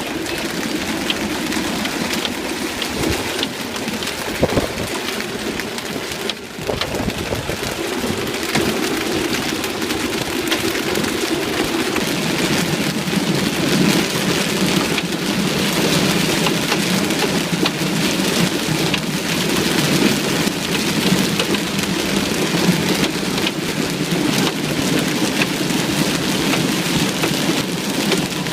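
Heavy hail pelting down: a dense, steady clatter of hailstones striking hard surfaces, growing deeper and heavier a little under halfway through.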